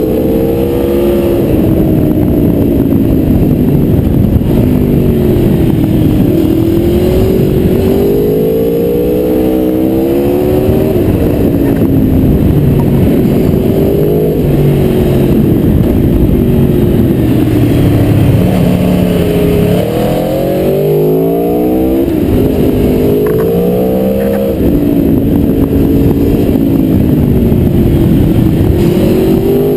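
Aprilia Tuono V4R's V4 engine heard from onboard while riding, its revs climbing and dropping again and again over a steady rush of wind and road noise.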